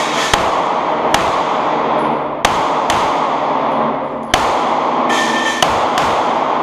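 Smith & Wesson M&P pistol firing about six shots at an uneven pace, each crack followed by a long echo off the walls of an indoor range.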